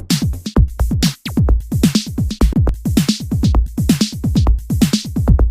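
Background electronic dance music with a driving drum-machine beat and deep bass.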